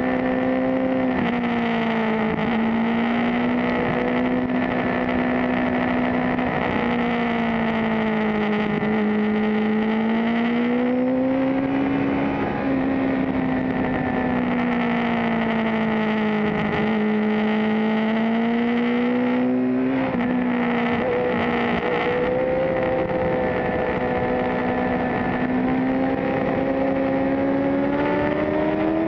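Suzuki GSX-R750's inline-four engine running at high revs on track, its pitch rising and falling smoothly through the corners, with a few abrupt steps in pitch, about a second in, near the middle and about two-thirds through.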